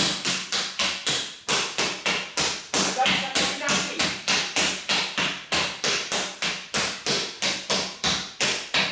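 Two rattan sticks striking a stack of rubber tyres in a fast, steady run of hits, about four a second, alternating between the hands. The hits stop suddenly at the end.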